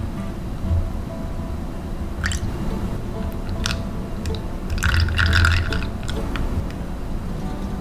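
Soap batter pouring in a thin stream into a plastic soap mold, with soft wet squishes and a few small clicks, busiest about five seconds in, over a steady low hum.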